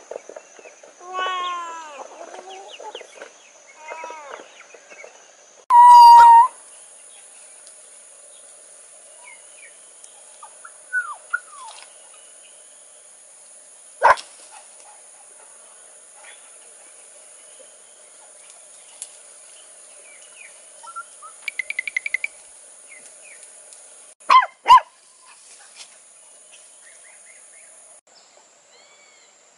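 A run of short rising-and-falling animal calls, then a loud held call about six seconds in. After that come scattered faint calls and a few sharp knocks over a steady high hiss.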